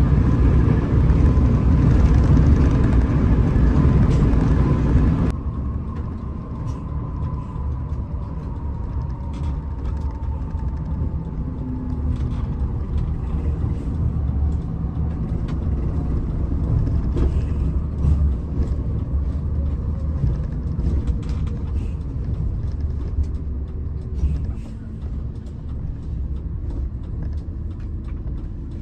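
Hino RM 280 bus running on the road, a steady low engine rumble. The sound drops abruptly about five seconds in, then goes on quieter with a faint whine that slowly falls in pitch.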